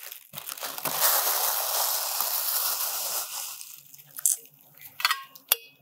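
Tissue paper rustling and crinkling as it is pulled away from a tumbler. It dies down about halfway through, leaving a few light clicks and taps as the cup is handled.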